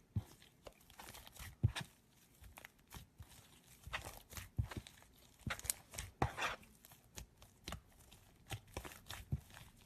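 Slime being squeezed and poked by hand: irregular crackling, popping and sticky clicks, a few of them sharper and louder than the rest.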